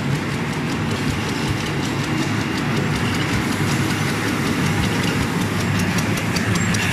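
Automatic pocket tissue production line running: a steady machine hum with a fast, regular clicking.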